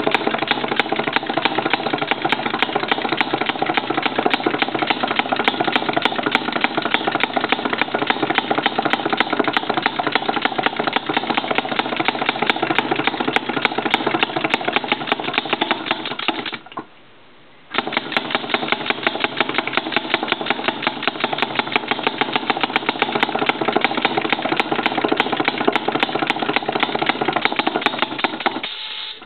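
A Rowland Type C model two-stroke engine, water-cooled with dual exhausts, running with rapid, even firing. It cuts out suddenly after about sixteen seconds, fires up again about a second later, and runs on until it stops just before the end.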